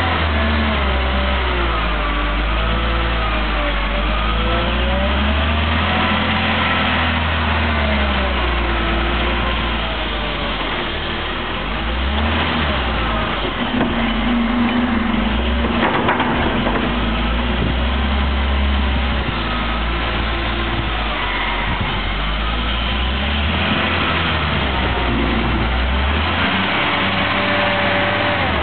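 Volvo L70F wheel loader's diesel engine working under load, revving up and down in pitch as it scoops, drives and lifts its bucket. A single knock about halfway through as the bucket tips its load into the truck's container.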